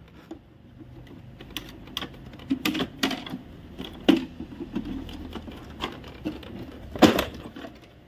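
Irregular clicks and knocks of plastic parts being handled on an opened Epson L3210 ink-tank printer, the loudest knock about seven seconds in.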